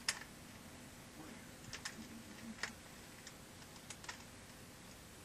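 3x3 Rubik's cube being turned by hand: scattered, irregular clicks as the layers are twisted, the sharpest right at the start. The clicking comes from a worn, poor-quality cube.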